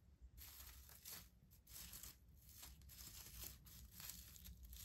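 Faint rustling and crinkling of artificial flowers' fabric petals being handled, in a series of short irregular strokes starting about half a second in.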